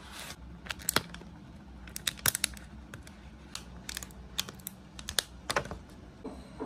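Thin clear plastic takeaway container clicking and crackling as it is handled and a disposable spoon cuts into a thick chocolate-and-cheese pancake inside it: a string of sharp, irregular clicks.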